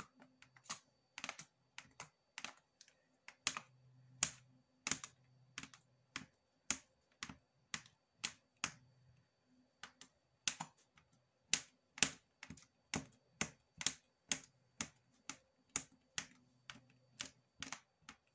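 Long flat clay blade chopping small pieces of polymer clay, striking the work mat in a steady series of sharp clicks, about two a second.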